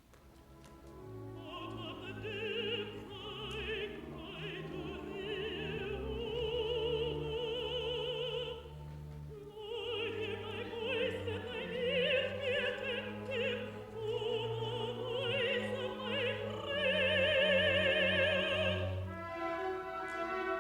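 Contralto voice singing long, held phrases with a wide vibrato over a full orchestra. There is a short break in the line about nine seconds in, and the loudest held note comes near the end.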